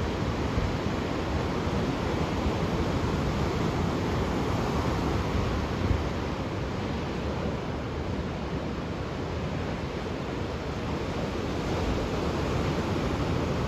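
Ocean waves breaking and washing on the shore in a steady wash of surf that swells and eases slowly, with some wind on the microphone.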